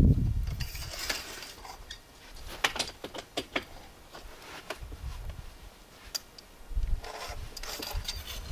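Scattered light metallic clinks and clicks, several in quick succession a few seconds in and one more a little later, over a low rumble at the start.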